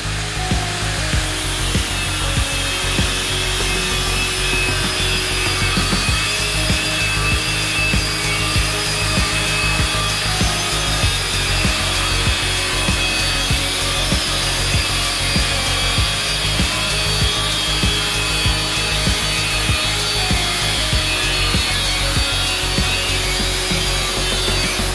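Angle grinder with a cut-off disc cutting through a thick steel pipe: a steady, high grinding whine as the disc bites into the metal.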